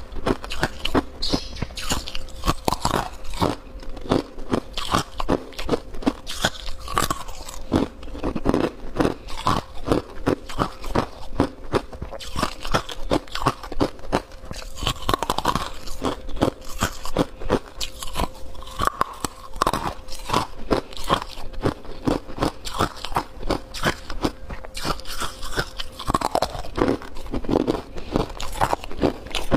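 Hard white ice being bitten and chewed close to a clip-on microphone: crisp crunches follow one another rapidly and keep up the whole time.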